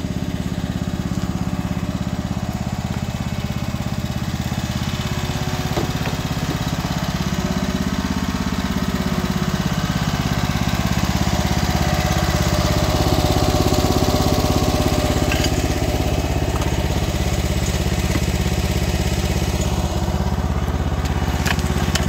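Small petrol engine of a portable Belle power unit running steadily at constant speed, with a few faint knocks near the end.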